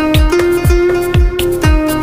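Background music with a steady drum beat, about two beats a second, under held melody notes.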